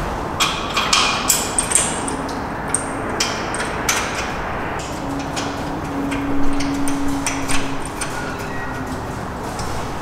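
Irregular metallic clinks and knocks as a steel bracket with a nylon roller guide is handled and set against a steel frame, a quick cluster near the start and more scattered taps after.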